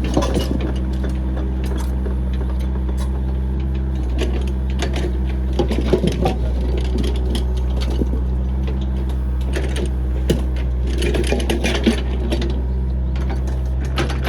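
Backhoe's diesel engine running steadily, with scattered metallic clanks and rattles over it.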